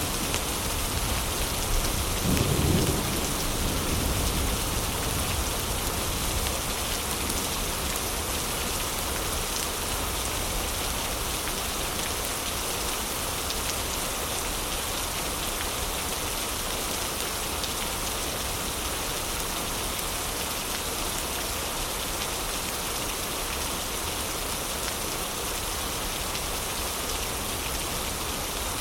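Steady heavy rain, with a low rumble of thunder about two to three seconds in that fades away.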